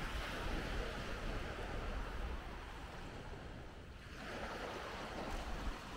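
Small surf washing on the beach, with wind buffeting the microphone. The wash fades about three to four seconds in, then builds again.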